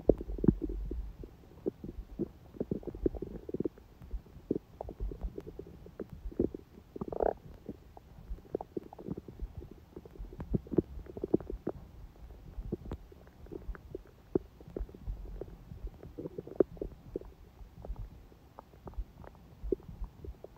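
Human stomach gurgling gently: a run of soft bubbling pops and low rumbles, with one short rising squeal about seven seconds in.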